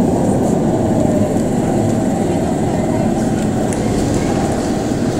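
Berlin U-Bahn train running along an underground station platform, a steady rumble of wheels and traction.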